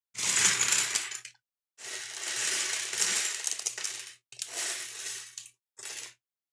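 Loose LEGO Technic plastic pieces clattering and rattling as they are tipped out and spread, in four bursts, the second the longest.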